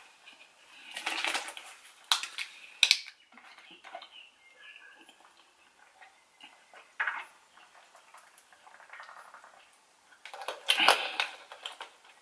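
Close-miked mukbang eating sounds: a person eating fish curry roti, with chewing and handling of the food. Scattered short noisy bursts and a few sharp clicks, with the loudest stretches about a second in and near the end.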